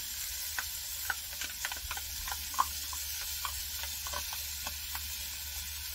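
Chopped onions sizzling steadily in a cast-iron Dutch oven, with scattered light clicks as a spoon scrapes and taps tomato paste out of a small bowl into the pot.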